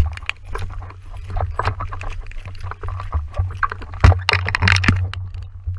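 Quick footsteps and rustling through tall dry grass, over a heavy low rumble of wind and handling noise on a body-worn camera's microphone. A loud thump comes about four seconds in.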